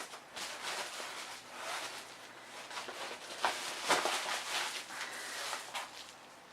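Rustling and crinkling of packaging as a mailed package is opened by hand: irregular scrapes and rips, loudest about three and a half to four seconds in.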